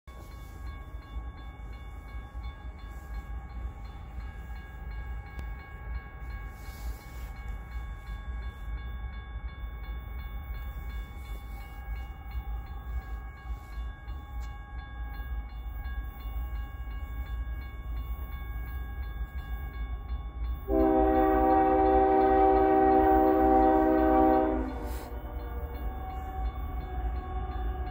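Approaching diesel locomotive's air horn, a BNSF ES44AC, sounding one long chord blast of about four seconds, a little past two-thirds of the way through. Beneath it runs a low steady rumble with faint steady tones.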